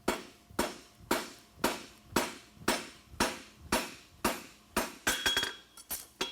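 Farrier's hammer striking a 3/8 x 1 inch steel horseshoe bar on the anvil in a steady rhythm of about two blows a second, each ringing briefly: forging the shoe's branch, upsetting and flattening the metal.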